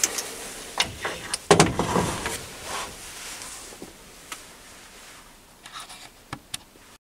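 Metal clunks and scraping as tooling is handled at the tailstock end of a mini lathe, with a drill chuck being set in place. The loudest clatter comes about one and a half seconds in, followed by a few light clicks.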